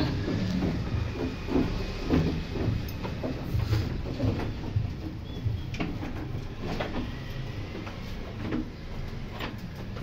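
Goats' hooves knocking and scuffing irregularly on a wooden slatted pen floor, over a steady low rumble.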